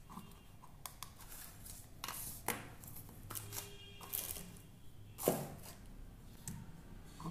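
Small plastic items and packaging from a nail kit being handled and set down on a tabletop: scattered clicks, taps and rustles, with one louder knock about five seconds in.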